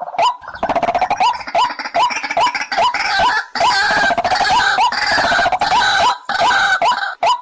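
White-breasted waterhen calling: a short hooked note repeated about three times a second. From about a second in, denser overlapping calls join it, as of more than one bird. Near the end it thins back to the single repeated note.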